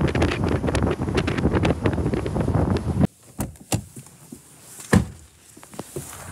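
Wind rushing loudly over the microphone in a moving car, very noisy; it cuts off about three seconds in. A few separate knocks and thumps follow, the loudest near the end, as someone gets out of the car.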